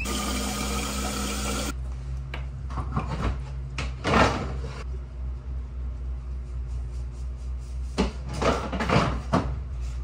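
Handling sounds of a calf's feeding bottle being filled and handled: a few short rustles and knocks, the strongest about four seconds in and a cluster near the end, over a steady low hum. It opens with a short steady sound that cuts off sharply under two seconds in.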